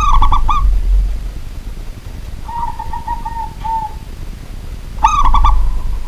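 Zebra dove (local perkutut) cooing: a loud quick run of stuttering coo notes right at the start, softer cooing notes from about two and a half to four seconds in, and another loud run about five seconds in.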